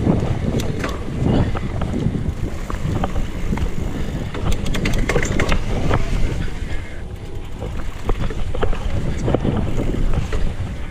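Wind buffeting the microphone over the rumble of knobby tyres rolling on a dirt trail, from a Specialized Kenevo electric mountain bike being ridden. Sharp clicks and rattles from the bike come over the bumps, thickest about four to five and a half seconds in.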